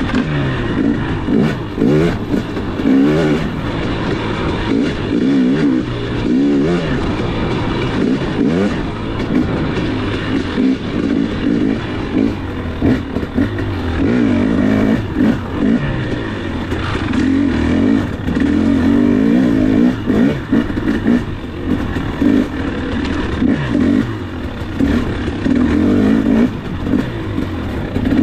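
KTM 250 dirt bike engine, heard from on the bike, revving up and falling back over and over as the throttle is worked through tight singletrack turns, with short knocks from the bike over rough ground.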